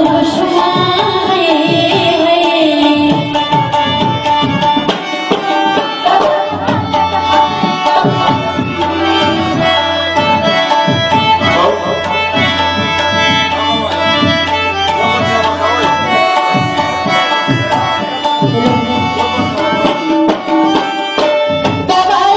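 Pashto tappay folk music played live: a tabla keeps a busy rhythm under held melody notes. A singer's voice carries the tune at the start and comes back in near the end.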